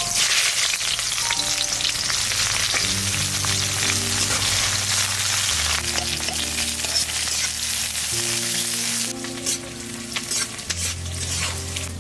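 Food frying in hot oil: a loud sizzle starts abruptly and eases about nine seconds in to a lighter crackle with scattered pops. Background music plays underneath.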